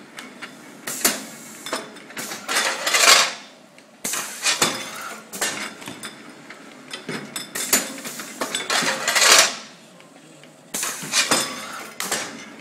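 Pneumatic tray-loading machine running with glass pharmaceutical bottles: bottles clinking and clattering against each other and the metal guides, amid sharp mechanical knocks. Two longer hissing stretches come about six seconds apart, in a repeating machine cycle.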